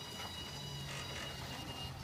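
Vending machine lift motor running with a steady low hum as the lift platform carries a carton down toward the delivery port; the hum grows a little stronger about half a second in.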